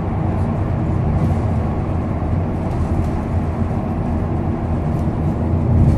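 Scania K230UB bus's engine running steadily under way, heard from inside the Alexander Enviro 300 passenger saloon: a continuous low drone with a couple of steady tones, mixed with road noise.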